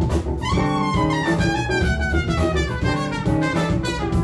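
Trumpet playing a jazz line over a live band with drum kit and electric guitar, the trumpet's phrase sliding downward in pitch through the first few seconds.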